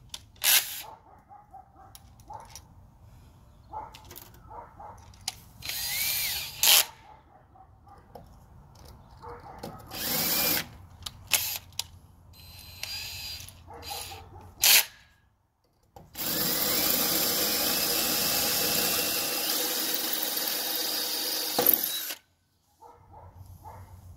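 Cordless drill with a small bit boring a pilot hole into brick. It spins up briefly twice, then drills steadily for about six seconds in the latter part and stops abruptly, with a few knocks in between.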